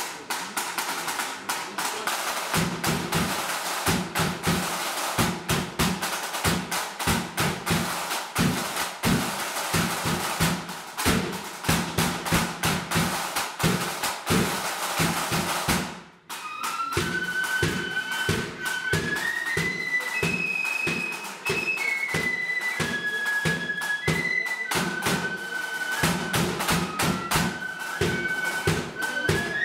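Marching flute band: side drums and a bass drum play a fast drum introduction with rolls. After about sixteen seconds there is a brief break, and then the flutes come in with a high melody over the drums.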